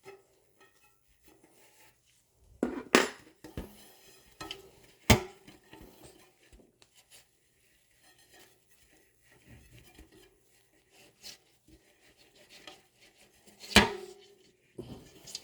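Small metal bicycle hub parts being handled and wiped clean of grease: sharp clinks and knocks about three seconds in, around five seconds in and near the end, with quieter rubbing and handling noises between them.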